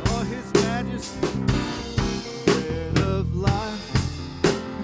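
Live praise band playing between sung lines: a drum kit keeps a steady beat with snare and bass drum hits under sustained bass and keyboard chords.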